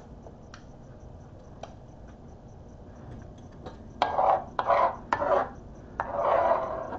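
Metal fork scraping across a plate: three short scrapes about four seconds in, then one longer scrape near the end.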